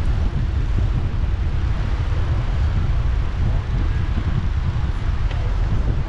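Wind buffeting a bike-mounted GoPro's microphone while cycling, a steady low rumble.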